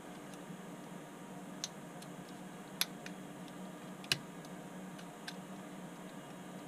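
A handful of small, sharp plastic clicks and taps as the parts of a Hornby Class 92 model locomotive's chassis are handled and fitted together, the two loudest near the middle, over a faint steady hum.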